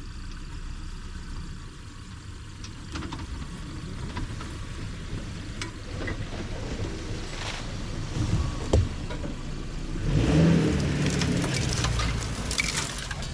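Maruti Gypsy 4×4 engine running at low revs as it creeps down a dirt slope and pushes through thick brush, growing louder as it passes close by about ten seconds in, with crackling and swishing of leaves and twigs against the tyres and body. A single sharp knock a little before that.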